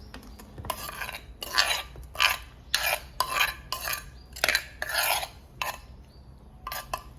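A spoon scraping and knocking against a dish in a run of quick strokes, about two a second, as pounded salad is scooped out onto a tray. Two lighter clicks come near the end.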